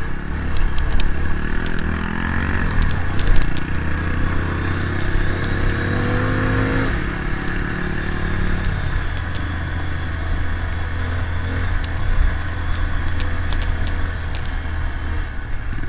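Motorcycle engine running under way on a dirt trail, its pitch rising for the first several seconds and then dropping about seven seconds in, with scattered clatter and ticks from the bike over the rough track.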